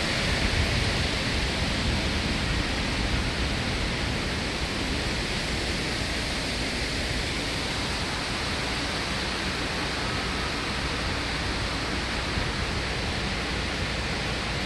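Strong wind ahead of a severe thunderstorm, a steady rushing noise that is a little stronger in the first few seconds.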